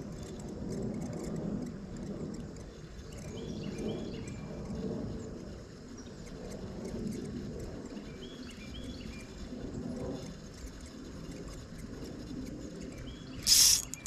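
Outdoor creek-side ambience with a bird giving a short repeated call phrase twice. Near the end a brief loud rasp from a spinning fishing reel, followed by a few shorter ones.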